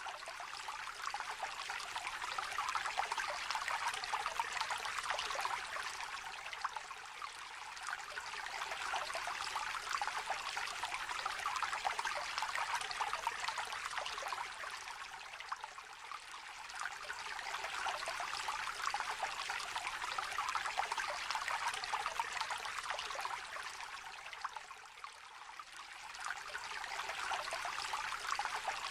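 Shallow river trickling and babbling over stones, a steady gurgling wash that swells and eases every several seconds.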